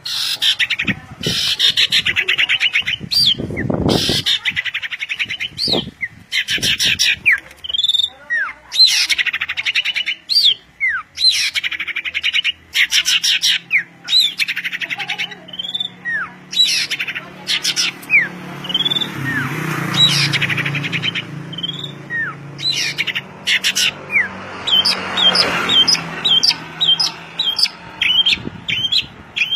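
Songbird singing loudly and continuously: rapid chattering trills mixed with short whistled slurs. Near the end it breaks into a quick run of repeated high notes.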